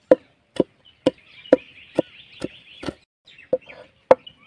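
A broad cleaver-like kitchen knife chopping garlic cloves on a wooden cutting board: sharp knocks about two a second, a brief pause, then two more strokes near the end.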